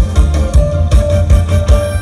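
Loud amplified Thai luk thung / mor lam band music, with a steady driving kick-drum beat, heavy bass and a held note over it.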